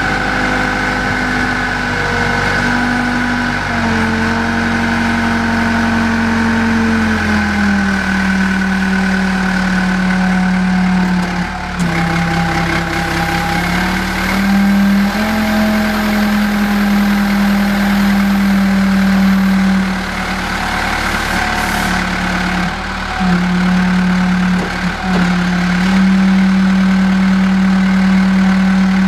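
Hyster H155XL 10,000 lb forklift's engine running, its speed stepping up and down several times as the truck is driven and the mast raises and lowers the forks, with a steady high whine over it.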